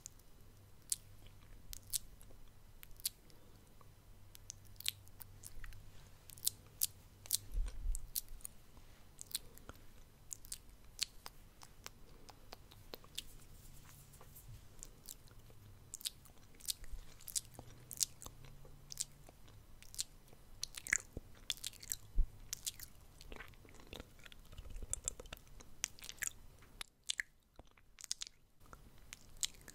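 ASMR mouth sounds close to the microphone: an irregular run of small wet clicks and smacks from the lips and tongue, pausing briefly near the end.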